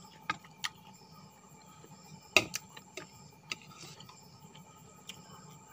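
A person eating close to the microphone: scattered short sharp clicks from chewing and the mouth, the loudest about two and a half seconds in.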